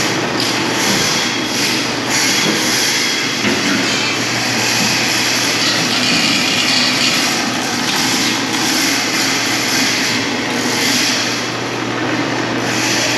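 Loud, steady machinery noise: a constant low hum with a dense hiss over it that swells and fades a little.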